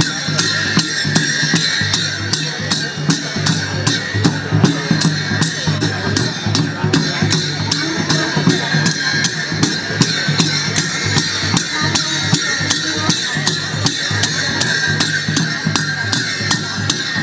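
Sakela dance music played live on double-headed dhol drums and large hand cymbals, struck in a steady, even beat, with the cymbals ringing.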